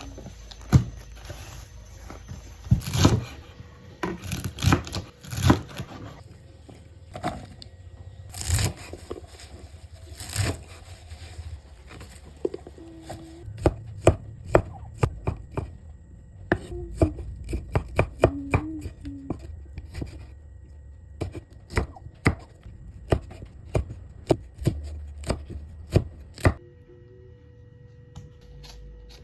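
Knife chopping food on a cutting board: sharp chops, irregular and clustered at first, then a steadier run of about two chops a second that stops near the end.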